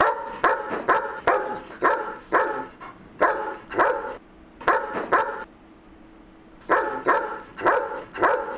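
A dog barking over and over in quick runs of several barks, with a break of about a second a little past the middle before the barking starts again.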